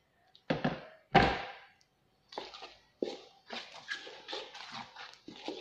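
Damp finger millet and wheat flour being rubbed and mixed by hand in a stainless steel bowl, short scraping rustles at about two strokes a second as the flour is worked into moist crumbs for puttu. Two loud knocks come about a second in, before the hand mixing starts.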